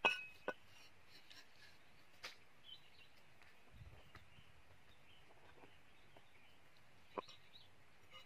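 Steel cleaver knocking on a round wooden chopping block: a sharp knock at the start and another half a second later, one a couple of seconds in, and one more near the end, with quiet stretches between.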